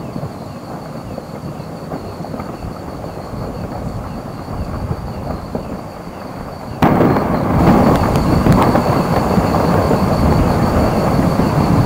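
Merapi's glowing lava-dome rockfall tumbling down the flank with a rumbling roar full of crackles and pops. The sound is a quieter rumbling hiss at first and jumps suddenly louder about seven seconds in.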